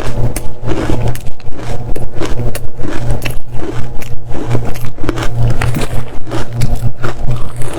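Close-miked biting and chewing of dry-texture matcha ice: a continuous run of sharp crunches, about three a second, over a steady low hum.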